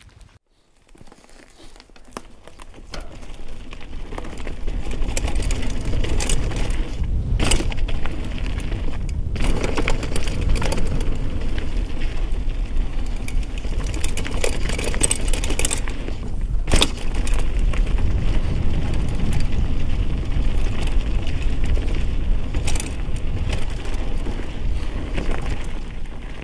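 Mountain bike riding down a dirt singletrack trail: tyres rolling and wind rushing over the helmet camera's microphone as a loud, steady rumble that builds over the first few seconds as speed picks up and eases near the end. Sharp knocks and rattles from the bike over roots and bumps break through now and then, the loudest about two-thirds of the way in.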